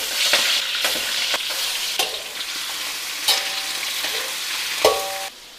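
Prawns sizzling in hot oil in a metal wok while a metal spatula stirs and turns them, scraping and knocking against the wok several times; two of the knocks ring briefly. The sizzle cuts off suddenly near the end.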